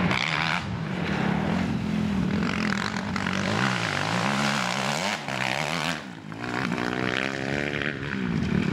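Motocross bike engine running hard as the rider rides over rough ground, its revs rising and falling over and over. About six seconds in it drops off briefly, then winds up again. A spectator guesses the bike is a 250.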